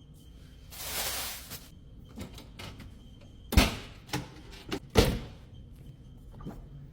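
Sounds of cleaning work: a hiss lasting about a second, then a few knocks and clicks, two of them loud about a second and a half apart.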